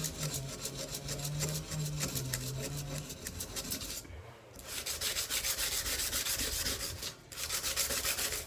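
Rapid back-and-forth hand-sanding strokes of 80-grit sandpaper, backed by a paint stick, rubbing along a steel knife blade, with a brief pause about four seconds in and another near seven seconds. A distant chainsaw engine hums in the background for the first few seconds.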